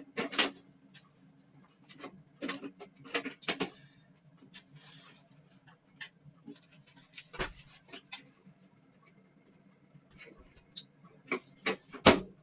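Scattered clicks, taps and knocks from hands and tools working on a boiler, a few loud ones near the start and near the end, over a faint steady low hum.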